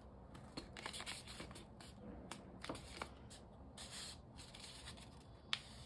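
Folded paper plate being handled and its layers slid against each other as they are lined up, a faint paper rustle with a few short crackles.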